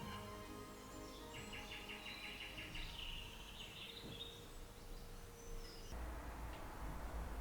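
Faint birdsong: a quick high trill starting about a second in, followed by a few scattered chirps. About six seconds in, this gives way to a low, steady background rumble.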